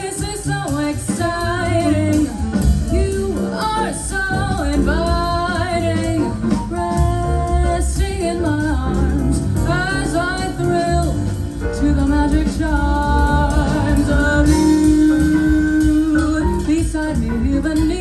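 Music with a singing voice over band accompaniment, played back through a pair of KEF LS50 Meta bookshelf speakers.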